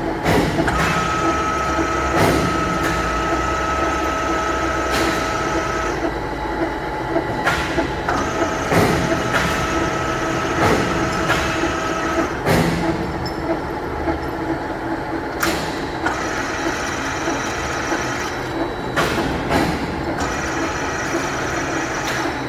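Ryazan 1M63N-3 engine lathe running under power: a steady mechanical din from the geared headstock. A whine comes in and drops out in stretches of several seconds, and sharp clunks sound every couple of seconds.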